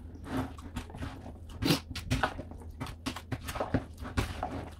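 A plastic spoon stirring and scooping a wet chickpea and yogurt chaat mix in a plastic bowl: irregular squelches and soft knocks, a couple of them sharper.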